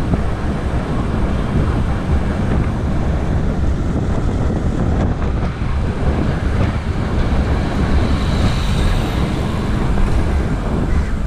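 Wind rushing over the microphone of a camera riding along on a moving bicycle, a steady low rumble mixed with road traffic noise.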